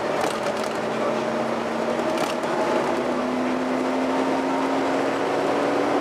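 Volvo B7TL double-decker bus heard from inside on the upper deck: engine and cooling-fan noise with a steady hum that steps up slightly in pitch about three seconds in, and a few light clicks near the start and about two seconds in.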